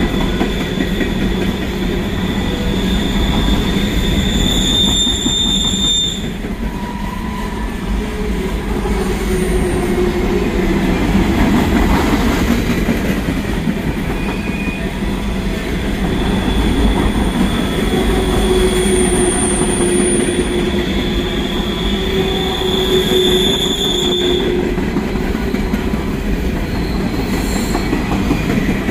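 Freight train cars rolling past on the rails with a steady rumble and clatter. A high-pitched steel wheel squeal comes in twice: near the start and again for several seconds past the middle.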